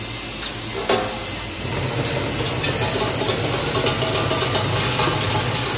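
Screw and bonded washer assembly machine running: a steady hum under a hiss, with a sharp knock about a second in, then from about two seconds in a louder, dense rattle of the mechanism and parts.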